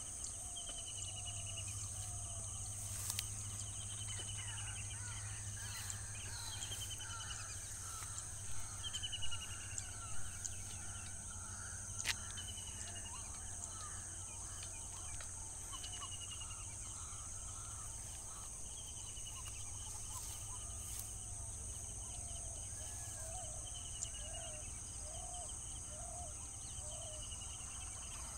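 Outdoor morning chorus of insects and birds: a steady high insect drone, a short bird trill repeated every few seconds, and scattered lower chirps, over a steady low hum. A few soft knocks come about a third of the way in.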